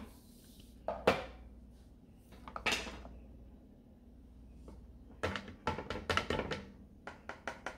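Kitchen utensils knocking: two separate knocks, then a quick run of taps and clinks as a food processor part is knocked and scraped against the rim of a colander.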